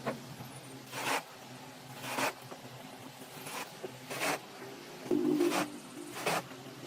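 Rhythmic hand-tool scraping on wood: short, sharp strokes about once a second.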